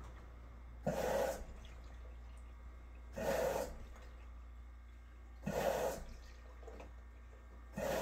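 LG WM2050CW front-loading washer's direct-drive drum tumbling wet laundry at the start of a cycle: a splashing swish about every two and a half seconds, over a steady low hum.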